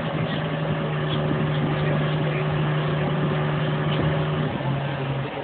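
Case MX100 tractor engine running steadily, heard from inside the cab, with a constant humming tone that drops in pitch near the end.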